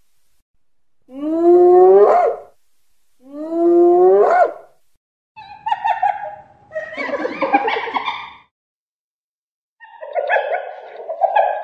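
Spotted hyena calling: two long whoops about a second and a half each, rising in pitch, then rougher, harsher calls in the second half.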